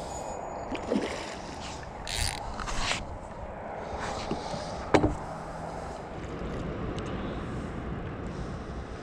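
Water splashing and sloshing as a hooked wild carp is played in close to the bank, with short surges about two and three seconds in. A single sharp knock about five seconds in is the loudest sound.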